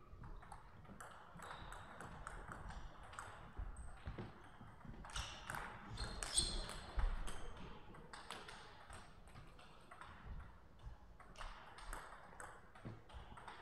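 Table tennis rally: sharp, repeated clicks of the plastic ball striking rackets and the table.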